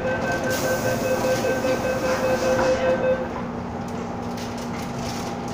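MTR M-Train door-closing warning: a rapid, even run of electronic beeps for about three seconds inside the carriage as the doors shut, then a steady hum from the train.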